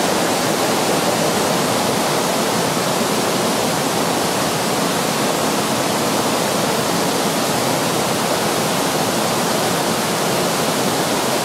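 Shallow river water rushing steadily over small rapids, an even, unbroken rush.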